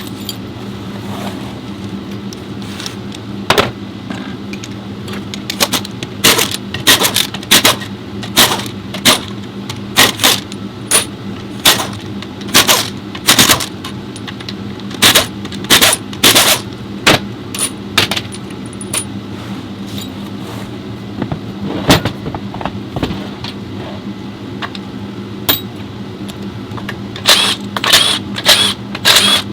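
Metal parts and hand tools clinking and clanking irregularly, many short sharp knocks, over a steady low workshop hum.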